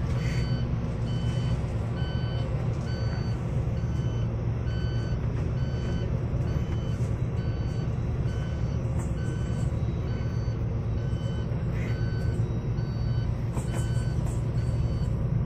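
Steady low engine drone of a vehicle driving across an airport apron, with an electronic warning beeper sounding short, evenly spaced beeps about twice a second.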